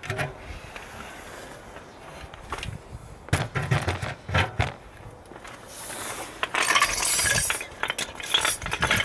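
Metal clinks and knocks as a VW Golf Mk5 front brake caliper is lifted off the disc and handled: a few knocks about three and a half and four and a half seconds in, then a second or so of scraping and rattling, and sharp clicks near the end.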